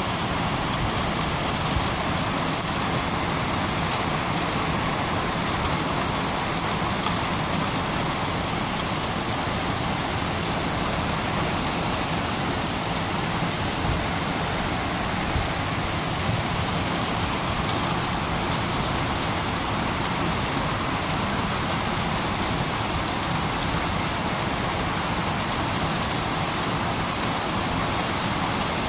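Steady rain falling and pattering on surfaces, an even hiss with many small drop impacts.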